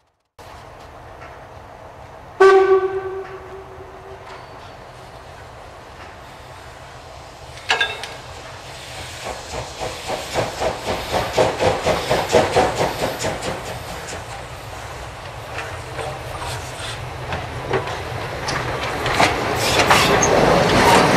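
A 1939-built class 41 2-8-2 steam locomotive starting a train away: its whistle sounds once about two seconds in, then the exhaust beats build up from about eight seconds in, getting louder as the engine draws near and passes.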